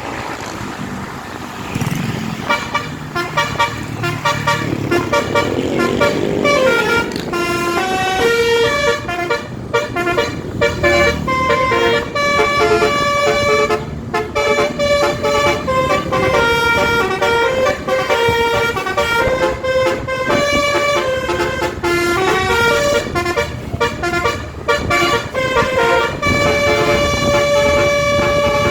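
Basuri multi-tone air horn on a tour bus playing a 'telolet' tune: loud horn notes that change pitch several times a second. It starts about two seconds in and keeps playing, over the bus's engine running.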